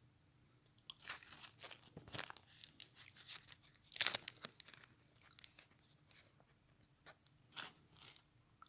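Plastic wrapper of a Kinder Maxi chocolate bar crinkling, with biting and chewing of the chocolate, in many short crackly bursts, loudest about four seconds in, with a few more near the end.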